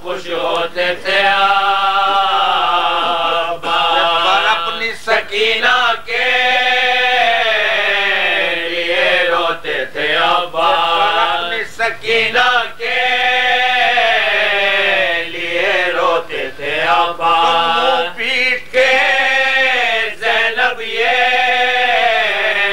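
An elderly man chanting an Urdu marsiya, an elegy, without instruments. He draws out long, wavering notes, with short breaths between phrases.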